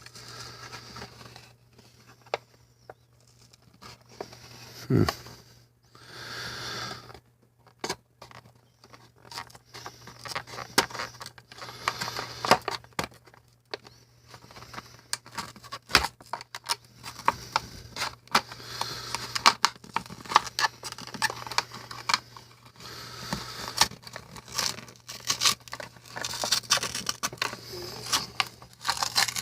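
A toy's plastic blister bubble and cardboard card being cut and pried apart with a hobby knife: irregular crinkling, scraping and tearing with many sharp clicks, over a low steady hum.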